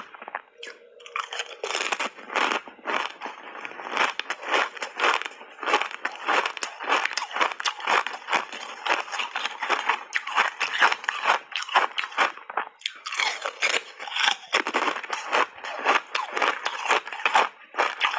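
Thin ice chips coated in milk and matcha powder being bitten and chewed: a fast, dense run of crisp crunches, easing off briefly about a second in.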